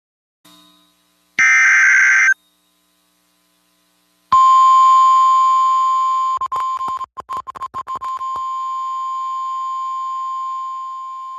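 A short burst of EAS digital header data, then, about four seconds in, the NOAA Weather Radio 1050 Hz warning alarm tone, held steady. The tone is chopped by rapid dropouts for about two seconds in the middle.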